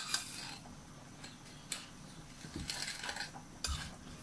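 Metal spoon clinking and scraping on a plate as it stirs a thick coffee-grounds scrub: a few sharp clinks, one right at the start and one just before the end, with softer scraping in between.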